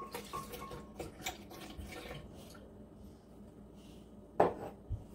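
Milk poured from a cup into a glass blender jar: a thin splashing trickle with small clinks for a couple of seconds, fading out. A single sharp knock about four and a half seconds in.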